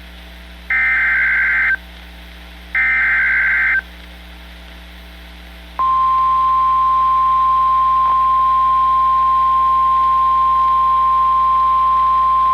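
Emergency Alert System SAME header: two raspy data bursts of about a second each, a second apart. About six seconds in, the NOAA Weather Radio 1050 Hz warning alarm starts, a single steady tone. It is the opening of a new alert, which is a severe thunderstorm warning.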